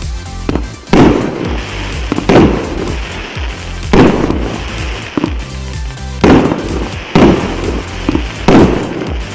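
A 297-shot consumer fireworks cake of 1–1.2 inch shells firing. There are about six loud bursts one to two seconds apart, each followed by crackling, over background music with a steady bass line.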